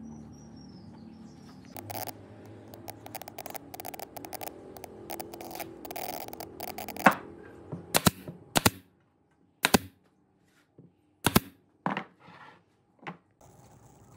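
Handling clatter and small clicks of wood and tools on a workbench, then from about seven seconds in a string of sharp single cracks, irregularly spaced, the first the loudest: a pneumatic brad nailer firing nails into the pine legs of a log-slab table.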